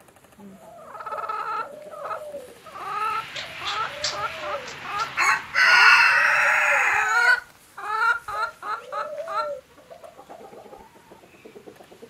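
Hens clucking in quick repeated calls, with a rooster crowing once, loudest about halfway through; the clucking fades away in the last couple of seconds.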